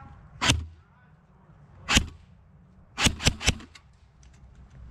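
Airsoft gun firing five single shots, each a sharp snap: one about half a second in, another near two seconds, then three quick shots in close succession around three seconds in.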